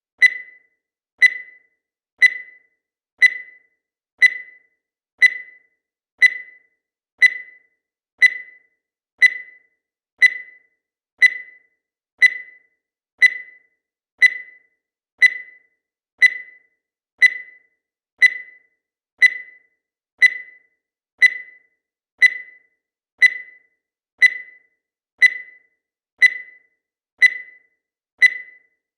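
Digital timer beeping once every second: a short, high electronic beep that starts sharply and fades quickly, repeated evenly with no other sound between beeps.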